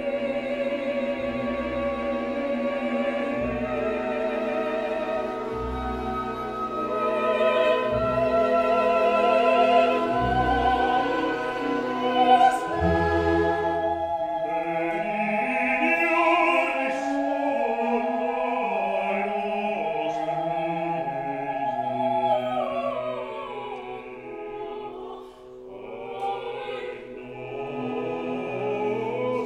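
Sacred choral music: high singing voices with vibrato, holding long notes over a steady sustained accompaniment.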